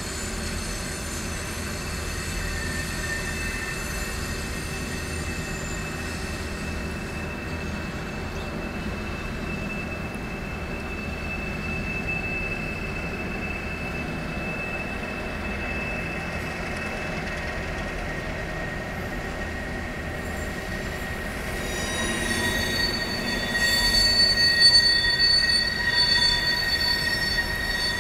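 Freight train rolling past, its wheels squealing in steady high tones over a low rumble. The squeal grows louder and gains higher tones over the last six seconds.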